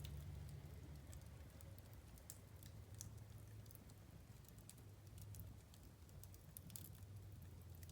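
Wood fire crackling faintly, with irregular sharp pops and ticks over a low, steady rumble.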